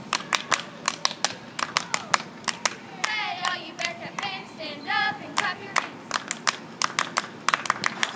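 Three cheerleaders clapping their hands in a quick, even rhythm, about three to four sharp claps a second.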